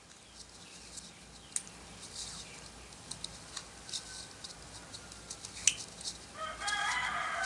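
Faint crackling and clicking of a roll of tape being pulled off and handled. About six seconds in, a rooster crows once, a single long call of about two seconds that is the loudest sound here.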